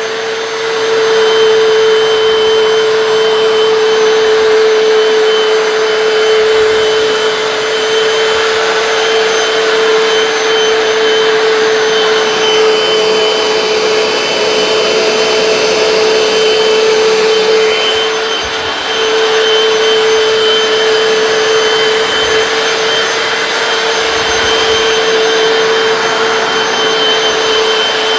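Hoover PowerDash wet hard floor cleaner running while it cleans, a steady motor whine over even suction noise, with a brief dip in level about two-thirds of the way through.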